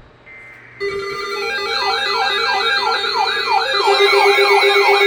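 Electronic siren sound starting about a second in: rapid falling sweeps, about two and a half a second, layered over steady and pulsing electronic tones, getting louder partway through.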